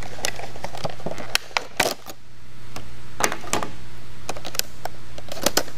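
Stiff plastic clamshell packaging crackling and clicking as a handheld scan tool is pulled out of it, with scattered sharp clicks over a steady low hum.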